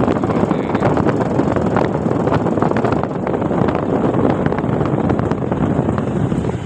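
Crompton air cooler's blower running and blowing air hard across the microphone: a loud, steady rush with crackling wind buffets. The blower, its broken bush rebuilt, is back in working order and delivering a strong airflow.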